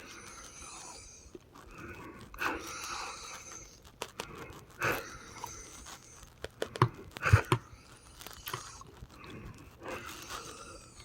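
Labored, wheezy breathing with crackling, a noisy breath about every two to three seconds, abnormal even after a breathing treatment. Some sharper crackles and clicks come about seven seconds in.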